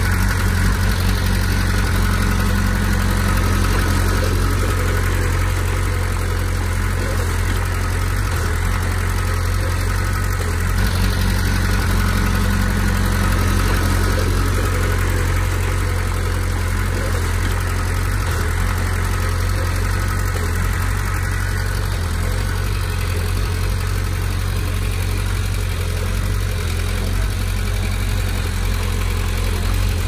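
Komatsu D20P bulldozer's diesel engine running steadily with a low drone, with no clear revving.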